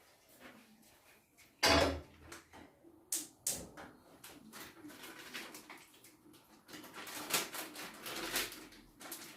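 Kitchen handling sounds: pots, dishes and utensils knocking and clattering, with a heavy thump about two seconds in and sharp clicks a second or so later.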